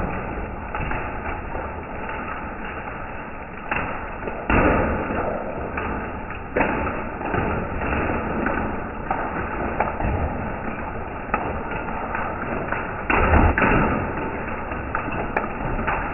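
Hail falling on a concrete path and the yard around it, played back in slow motion: a dense, continuous patter with scattered heavier thuds, the loudest a few seconds in and again about thirteen seconds in.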